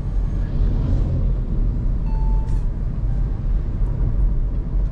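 Kia K3 Premium sedan driving along, a steady low rumble of engine and tyre noise heard from inside the cabin. A brief faint tone sounds about two seconds in.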